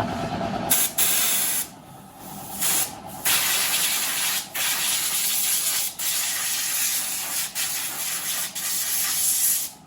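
High-pressure spray nozzle hissing over a motorcycle in long bursts, stopping briefly about six times.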